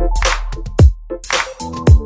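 Electronic background music with a driving drum-machine beat: punchy kick drums, snare hits and a bass line under short synth notes.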